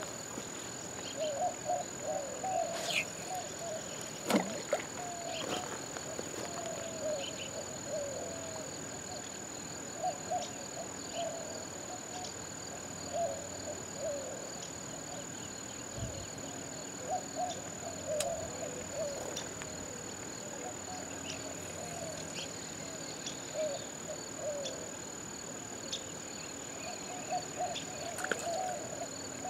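Riverbank ambience: steady high-pitched insect trilling, with short bursts of low wavering calls recurring every few seconds and a few faint clicks.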